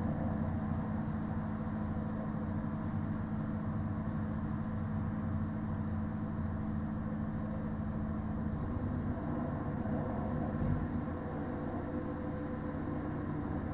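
A parked delivery lorry's idling diesel engine and its trailer refrigeration unit running together, making a steady, deep, droning hum. Partway through, the low hum shifts and a higher hiss joins in, with a single brief thump soon after.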